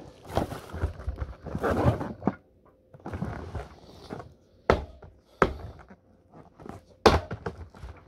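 Hands handling and scraping a cardboard soda 12-pack box, then three sharp thunks on the cardboard in the second half.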